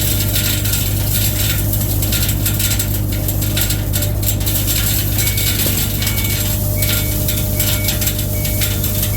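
Skid steer engine running steadily, with a dense, continuous metallic clicking and rattling over it.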